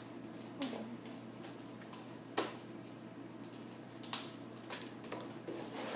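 Sticky slime being kneaded and pulled by hand, giving a few scattered wet clicks and squelches.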